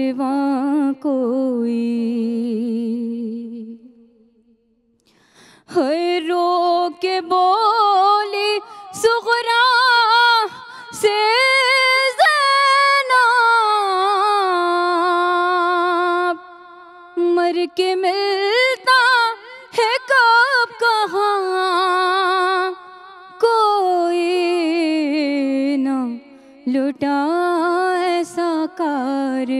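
A woman's voice singing a noha, a Shia lament for Karbala, unaccompanied into a microphone: a slow melody of long, wavering held notes, with a breath pause about four seconds in and shorter pauses between lines.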